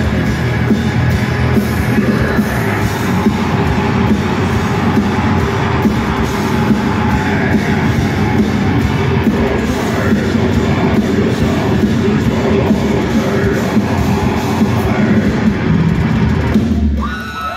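Metal band playing live at full volume: distorted electric guitars, bass and drums, heard from within the crowd. The song stops near the end.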